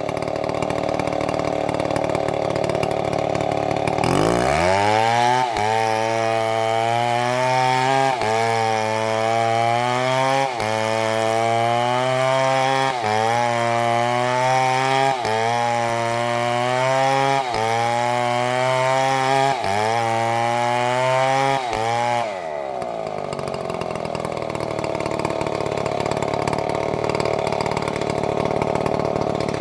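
A STIHL chainsaw running at low speed, then throttled up to full revs about four seconds in. Its pitch sags and recovers roughly every two and a half seconds as it cuts, then it drops back to low speed about three-quarters of the way through.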